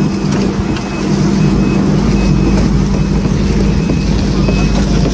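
An engine running loudly and steadily, with a short high beep repeating a little more than once a second.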